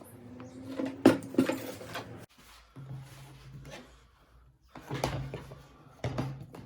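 Handling knocks and scraping of an MDF workpiece and tools on a bench: a sharp knock about a second in with scraping after it, then more knocks and rubbing near the end.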